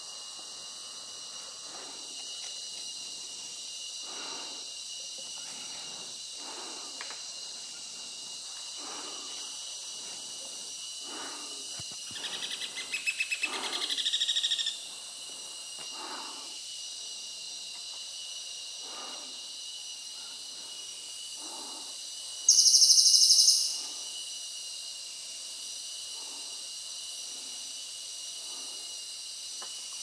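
Buff-necked woodpecker pecking at its nest hole, soft dull knocks coming irregularly about once every one to two seconds, over a steady high-pitched insect chorus. A pulsed trill sounds about twelve seconds in, and a loud high insect buzz lasting about a second, about two-thirds of the way through, is the loudest sound.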